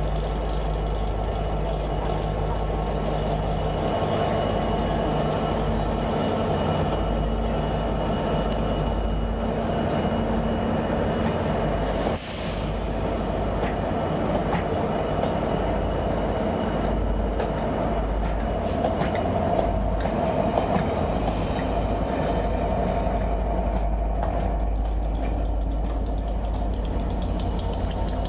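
Colas Rail Class 67 diesel locomotives, each with a V12 two-stroke diesel engine, running steadily as their test train rolls past, with rail and wheel noise from the coaches. A brief sharp burst of noise about twelve seconds in.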